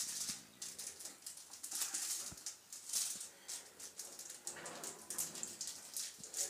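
A small plastic sachet of chili powder being shaken and flicked by hand, a dry rustling rattle in quick repeated bursts.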